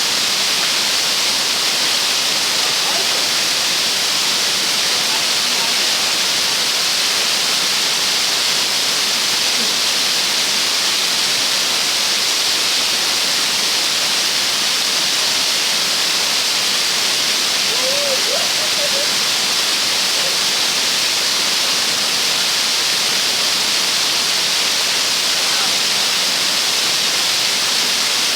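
Waterfall: a steady, loud rush of falling water close by, even and unbroken.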